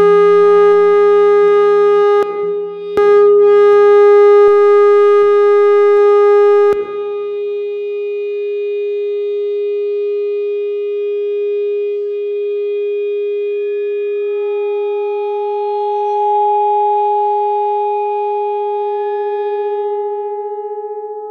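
Sustained feedback tone from an amplified Musser vibraphone, its bars driven by transducers and picked up by microphones in the resonators: one held pitch with ringing overtones. It is loudest for the first several seconds, where a few light taps fall, then drops to a steady, softer drone in which a higher overtone swells and fades about three-quarters of the way through.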